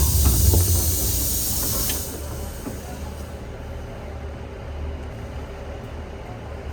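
Inside a moving train: a steady low rumble, with a loud hiss over it that drops away suddenly about two seconds in.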